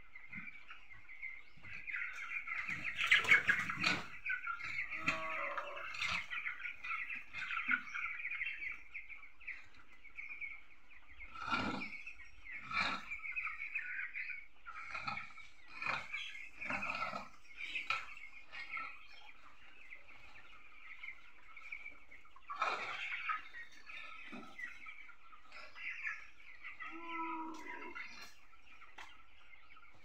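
A flock of young broiler chicks peeping continuously, with a few short scraping strokes of a rake dragged through the floor litter.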